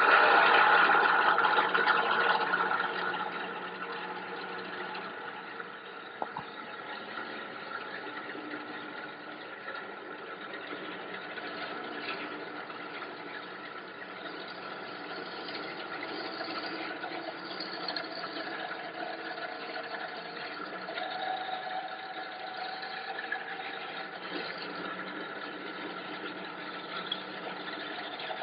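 Water-fed band saw running and cutting through live rock to frag coral, a steady motor whine with gritty cutting noise. It is loudest for the first two or three seconds, then settles to a steadier level.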